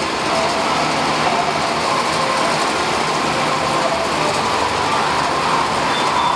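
Air bike's fan spinning fast under hard pedalling and arm pumping, a loud steady whoosh.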